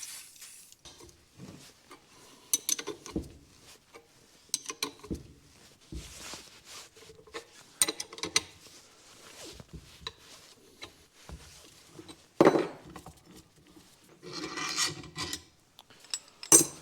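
Intermittent metal-on-metal scraping, creaking and knocks as a rubber bushing is pressed into a steel suspension trailing arm with a socket as the driver, with a sharp knock about twelve seconds in, a longer scrape a couple of seconds later and another knock near the end.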